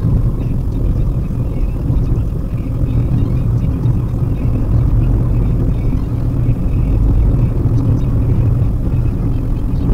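Steady low rumble of a Maruti Suzuki WagonR's cabin while driving: engine and tyre-on-road noise heard from inside the car.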